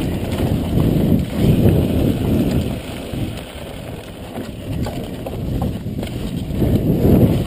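Wind rushing over the microphone, with the tyre rumble and rattle of a mountain bike riding fast down a dirt trail. It eases off in the middle and builds again near the end.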